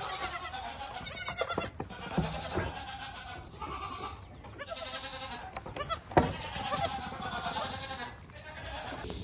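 Several goat kids bleating, their calls overlapping one another, with a sharp knock about six seconds in.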